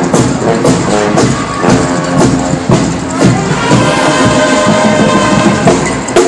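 Marching band playing on the march: brass horns, trombones and sousaphone among them, over a steady drum beat of about two strokes a second, with held horn chords in the second half.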